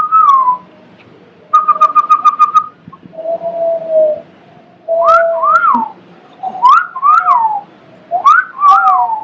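Mouth whistling: a short falling note, then a quick trill of about eight rapid notes, a lower held note, and a run of rising-and-falling swooping whistles.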